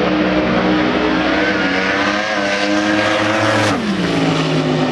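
Drag-racing car engine running hard at speed, its note climbing slightly and then dropping sharply in pitch near the end as the car goes past.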